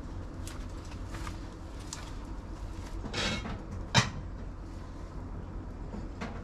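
Dishes and utensils being handled: a short scrape about three seconds in, then one sharp knock about a second later, over a low steady background.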